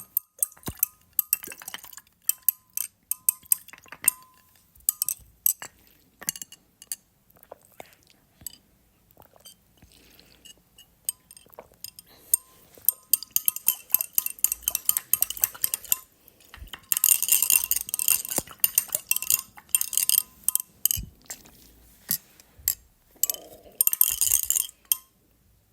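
Glass drinking straw clinking and rattling against a glass, with short ringing taps. Twice, longer noisy stretches of sucking juice up through the straw.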